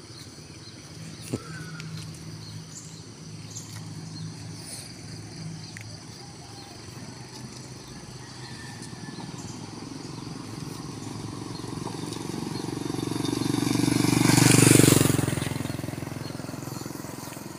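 A motorcycle approaching and passing close by: its engine and road noise grow slowly louder to a peak near the end, then fade away.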